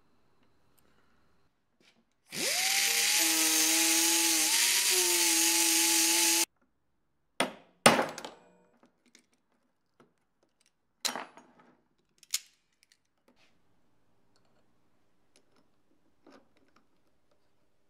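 A handheld power tool runs for about four seconds. Its motor spins up with a rising whine and then cuts off sharply. A few separate sharp knocks follow, as of parts or tools being handled.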